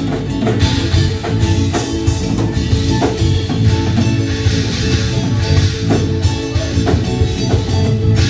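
Live smooth-jazz band playing: two acoustic guitars over electric bass, drum kit and keyboards, with a steady drum beat.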